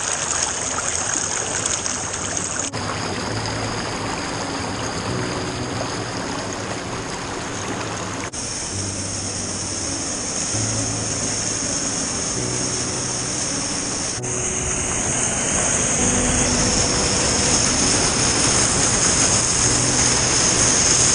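Waterfall rushing steadily, with faint background music underneath; the rush changes abruptly three or four times where shots are cut together.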